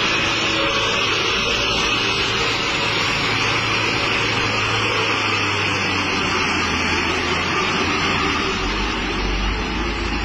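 Truck engines running with a steady drone and road noise. A deeper low rumble comes in near the end.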